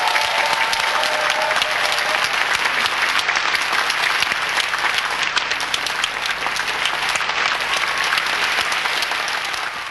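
A large audience applauding steadily with dense, continuous clapping. A faint voice rises above it in the first second and a half.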